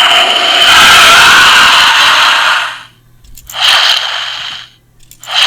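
Electronic sound effects from a Bandai DX Nichirin sword toy, played through its small built-in speaker: a long hissing rush of about three seconds, then two short bursts of the same hiss.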